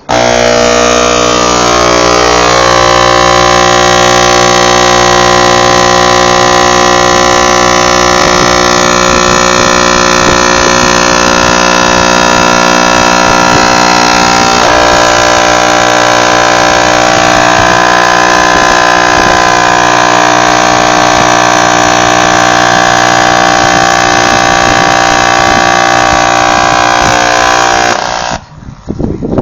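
A Clarion WQ2510D car subwoofer is wired straight into 120-volt wall current and gives off a very loud, steady mains buzz with many overtones, the driver overdriven far beyond its rating. The buzz starts abruptly, its tone shifts slightly about halfway through, and it cuts off suddenly shortly before the end.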